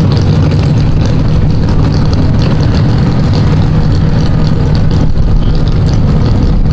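Mega truck's engine running loud and steady under power as the truck plows through a mud pit, with mud and water splashing.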